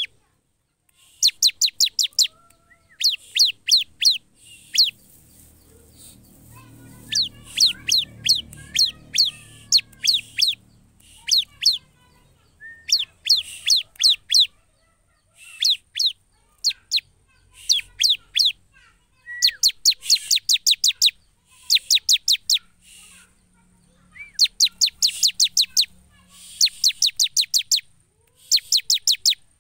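Bar-winged prinia (ciblek) singing: bursts of about a second of rapid, high, downward-swept chattering notes, repeated again and again with short pauses.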